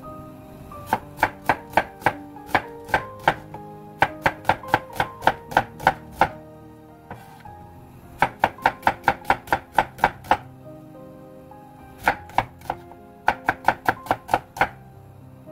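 Chef's knife slicing a peeled onion on a wooden cutting board: the blade taps the board in quick runs of about four strokes a second, with short pauses between runs as the onion is repositioned.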